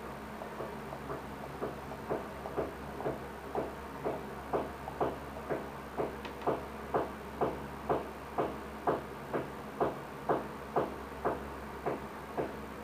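Opening of a music video's soundtrack: an even ticking, about two ticks a second, that slowly grows louder over a low steady hum.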